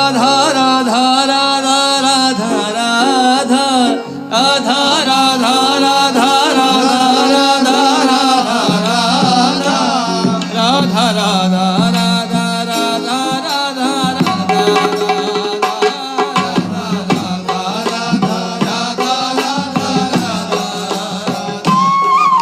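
Devotional chant music: a voice singing a gliding, ornamented melody over tabla and a steady low drone. It cuts off suddenly at the end.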